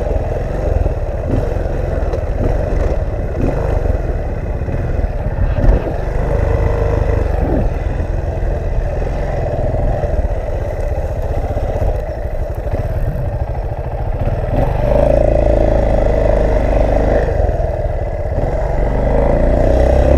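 Small off-road motorcycle engine running steadily as it rides over a rutted dirt trail, with rattles from the bumps and wind buffeting the microphone. The engine gets louder about three-quarters of the way through.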